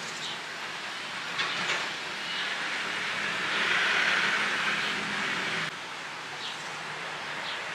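Background ambience of an outdoor eatery: a steady hiss that swells through the middle and drops off suddenly, with a few faint clicks.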